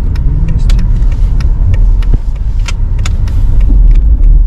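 Road noise inside a moving car's cabin: a steady low rumble of engine and tyres, with small sharp rattling clicks scattered throughout.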